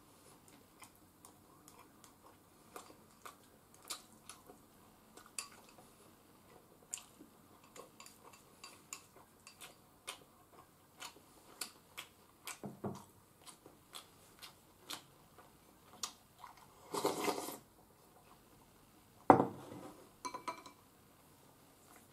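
Eating with chopsticks from a ceramic bowl: many small clicks of the chopsticks against the bowl, with some chewing. A short noisy burst comes about seventeen seconds in, and a louder knock about nineteen seconds in, as a bowl is set down on the table.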